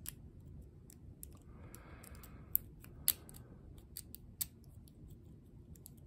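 A lock pick working the pins of a small all-brass pin-tumbler padlock under a tension wrench, making scattered light metallic clicks with a few sharper ones. The lock has not yet opened.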